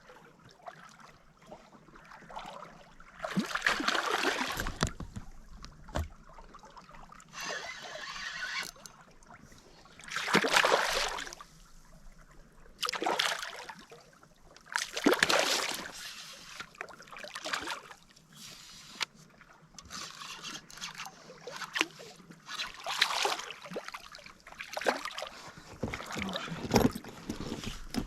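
Water sloshing and splashing against a small boat, coming in bursts about every two to three seconds.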